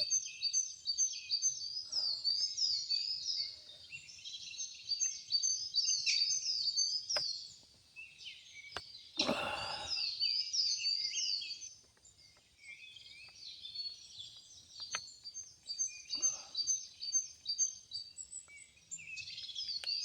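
Forest ambience: a dense chorus of high, quickly repeated chirping calls from small creatures in the surrounding woods, with a few sharp clicks and a short rustle about nine seconds in.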